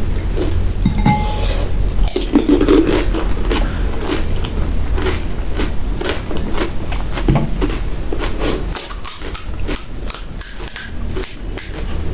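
Close-miked eating of pani puri: crisp puri shells crunching and being chewed, with a run of sharp crunches near the end, over a steady low hum.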